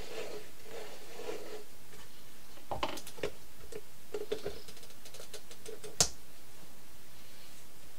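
Small clicks, knocks and brief squeaks from a meat grinder being handled and pressed onto a worktop, with one sharp knock about six seconds in. Its suction base is not sticking.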